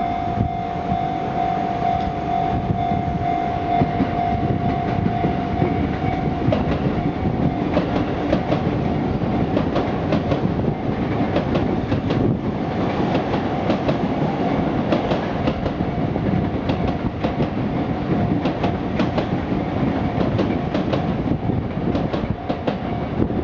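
A Sotetsu Line electric train passing over a level crossing, its wheels clattering steadily over the rail joints. A steady high tone sounds along with it for the first six seconds or so, then cuts off.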